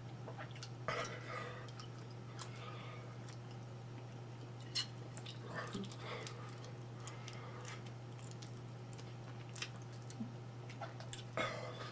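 Person chewing cheese, with scattered soft mouth clicks and smacks and a few brief louder bursts, over a steady low hum.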